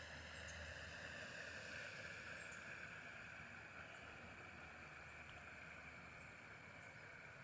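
Faint outdoor ambience: a steady high hiss with a few brief, very high chirps scattered through it.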